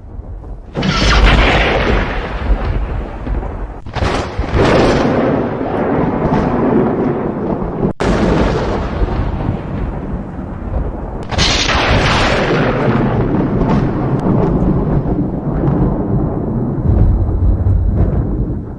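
Thunder: about four sharp cracks, each followed by a long rolling rumble. Abrupt breaks between some of them sound like edited cuts.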